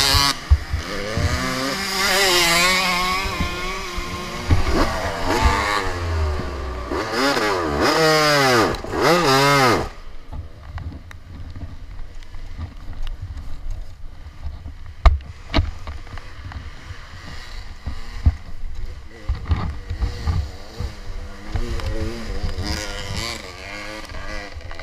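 Dirt bike engine revving up and down in hard bursts. About ten seconds in it drops away to a quieter low sound with scattered knocks and rattles, then comes up faintly again near the end.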